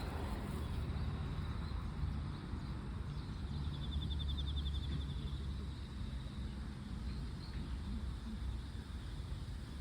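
Outdoor park ambience: a steady low rumble, with a short, rapid high-pitched trill about four seconds in.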